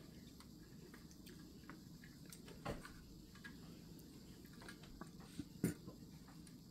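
Quiet room with faint clicks and light rustles of food and tableware being handled at a meal table, and two sharper knocks about three seconds apart.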